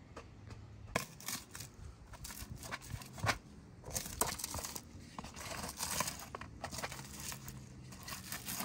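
Shelled walnut kernels being crushed with a hand-held stone in a wide tray: irregular crunching and scraping strokes.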